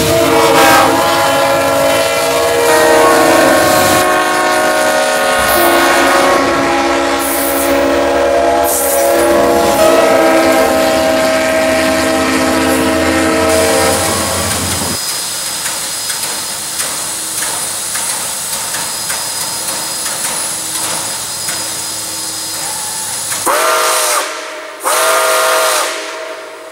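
A diesel locomotive's air horn sounds several tones at once in a long series of blasts for roughly the first fifteen seconds, followed by a quieter steady hiss and rumble. Near the end, Nickel Plate Road 765, a 2-8-4 Berkshire steam locomotive, sounds two short whistle blasts.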